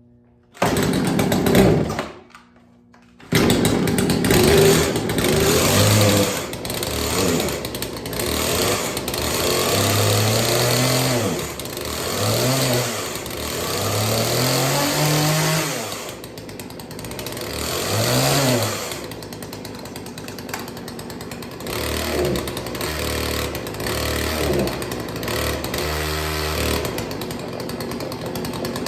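Two-stroke chainsaw engine: a short burst of running that stops, then the saw runs again and revs up and down several times before settling at a lower, steadier speed.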